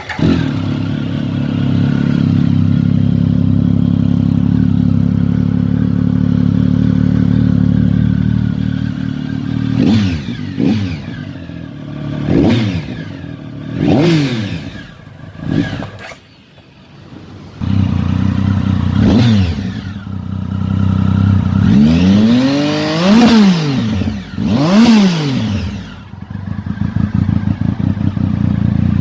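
Triumph Speed Triple 1050's inline three-cylinder engine idling steadily, then revved with a run of short throttle blips, each pitch rising sharply and dropping back. After a brief lull comes a second set of blips, the two near the end reaching the highest revs, before it settles back to a lumpy idle.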